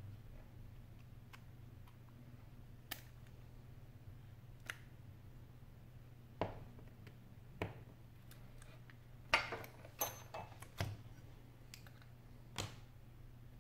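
Small clicks and taps of a smartphone's parts and small tools being handled, a second or two apart, with a quick run of louder clicks about two-thirds of the way through; a low steady hum underneath.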